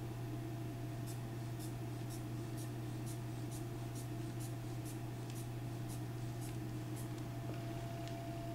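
Blood pressure cuff being pumped up by hand: about a dozen quick, airy squeezes of the sphygmomanometer's rubber inflation bulb, roughly two a second, stopping about seven seconds in. A steady low hum runs underneath.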